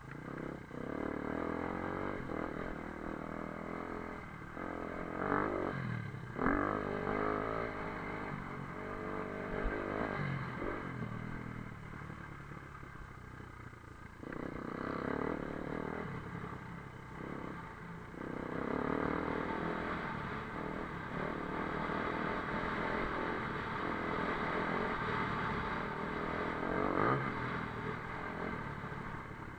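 Motocross bike engine being ridden, revving up and easing off again and again, its pitch rising and falling with the throttle.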